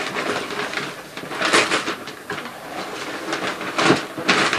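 Shiny foil gift wrap crackling and tearing as a large present is ripped open by hand, in irregular bursts, loudest about one and a half seconds in and again near the end.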